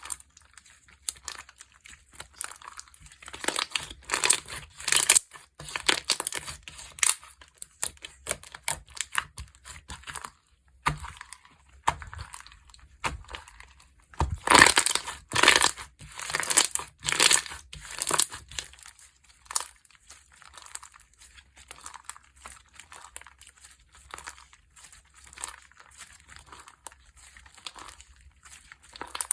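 Slime being squeezed and stretched by hand, giving dense runs of small clicks and pops. They come loudest in two spells, about 3 to 7 seconds in and about 14 to 18 seconds in, and are softer in between and afterwards.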